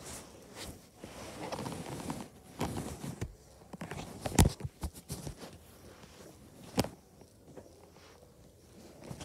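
Footsteps on a wooden staircase with the rustle and knocks of a handheld phone being moved about; a single loud thump about four and a half seconds in and another just before seven seconds.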